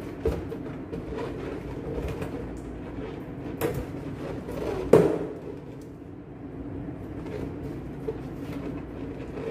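Latex balloon being handled and tied off, with a few sharp snaps and clicks, the loudest about five seconds in, over a steady low hum.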